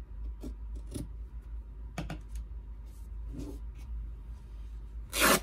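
Craft materials handled on a tabletop: a few light clicks and taps, then a louder brief rustling noise near the end, the loudest sound here.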